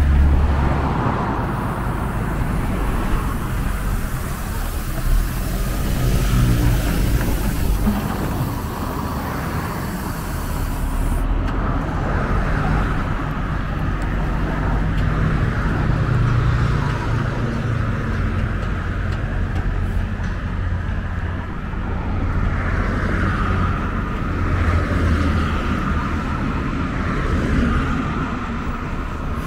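Heavy diesel truck engine idling steadily, a low hum, with road traffic passing by.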